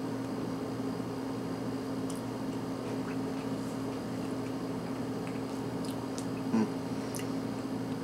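A person chewing a piece of crispy bacon, with faint scattered crunching clicks and one slightly louder click about six and a half seconds in, over a steady low electrical hum in the room.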